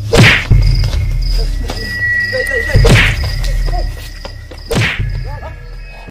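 Haunted-house attraction's spooky soundscape: a loud low rumbling drone with a thin steady high tone over it. Three loud sudden thumps with a whoosh come at the start, about three seconds in and near five seconds.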